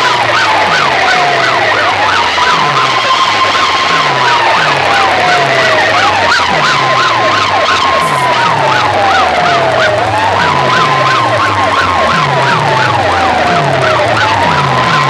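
Siren-effect hard-bass DJ track played loud through stacked horn loudspeakers. A wailing tone climbs, holds and slides down about every four seconds over a fast warbling chirp and a string of deep bass hits.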